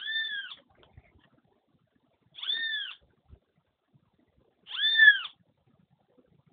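A female sabiá thrush calling three times, about two and a half seconds apart. Each call is a short, clear note that rises and falls in pitch.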